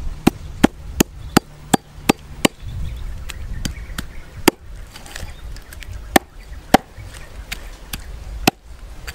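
A knife chopping a snake into pieces on a round wooden chopping block, each stroke a sharp knock of the blade into the wood. The strokes come quick and even at first, about three a second, then sparser.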